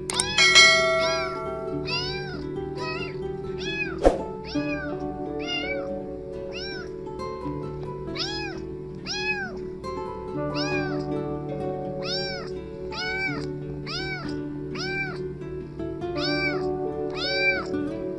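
Tabby kitten meowing over and over, short high calls about one and a half a second, over background music.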